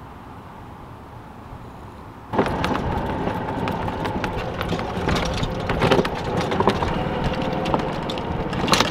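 A golf cart driving along a path, heard from on board: its body and frame rattle and knock over bumps, with a faint steady whine underneath. It starts suddenly about two seconds in, after a quiet outdoor background.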